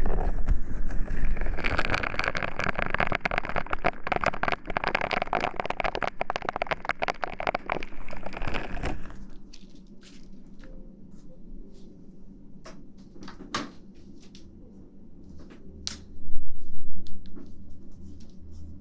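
Close-miked ASMR rustling and crinkling: a dense crackle full of tiny clicks for about nine seconds, then only scattered clicks, with a low bump near the end.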